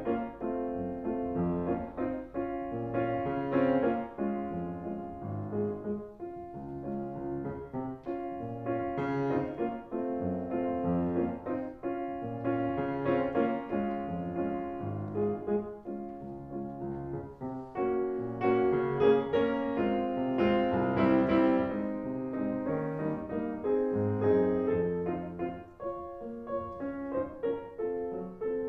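Background instrumental piano music, with notes and chords changing every second or so over a bass line.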